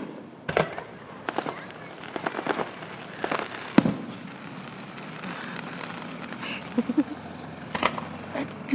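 Fireworks going off: scattered sharp bangs and quick runs of crackling pops, the loudest bang about four seconds in.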